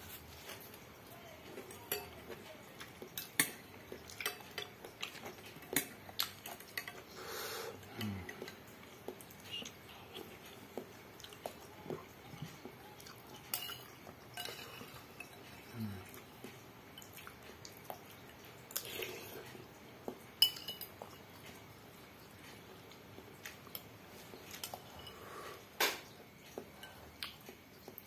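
Metal spoon clinking and scraping against a glass soup bowl as the last of the broth and noodles are scooped out. The clinks come irregularly, one every second or two, the loudest about two-thirds of the way through.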